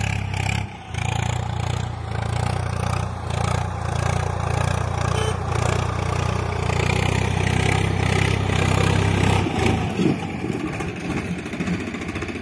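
Tractor engine running at a steady low hum, which eases off and turns uneven about ten seconds in.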